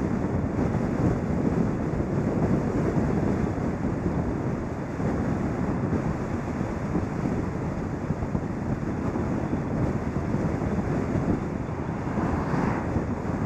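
Wind buffeting the microphone of a camera mounted on a moving car's bonnet, over a steady rumble of tyres on the road.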